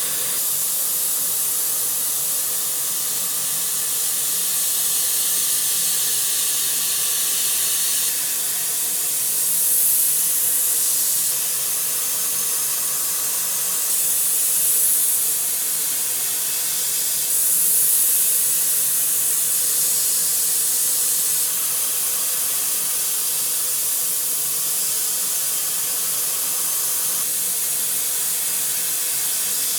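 CNC machining centre milling with an NS TOOL MHDSH445 end mill: a steady, loud high hiss with faint steady machine tones beneath. The hiss swells briefly three times, about a third, halfway and three-fifths of the way through.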